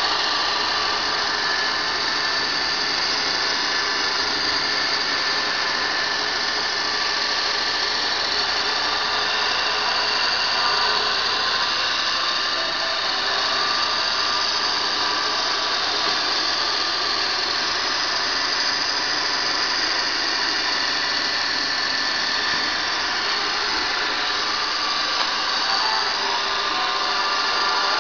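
Squeegee sharpening machine running steadily, its electric motor driving the grinding wheel against a clamped rubber squeegee blade. It gives an even high whine over a constant hiss.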